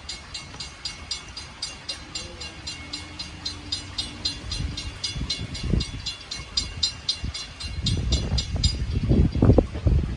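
Railroad grade-crossing bell ringing, about three high strokes a second, warning of an approaching train; it stops near the end. A faint distant horn sounds a few seconds in, and low gusts of wind buffet the microphone louder in the last few seconds.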